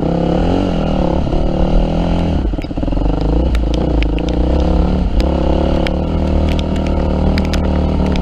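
Yamaha WR250F's four-stroke single-cylinder engine running as the dirt bike rides the trail, its revs rising and falling a few times with the throttle. Scattered sharp ticks and clatter sound over the engine.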